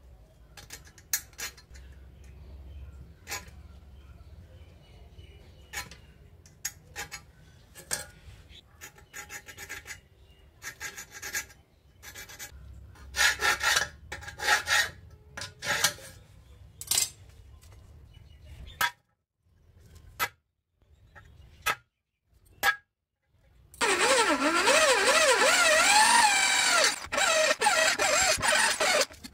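A steel scriber scratching marking lines onto a rusty square steel tube, with small clicks and knocks as the combination square is moved. About three-quarters of the way through, a drill bit starts boring through the tube's steel wall, a loud continuous grinding with a whine that wavers in pitch.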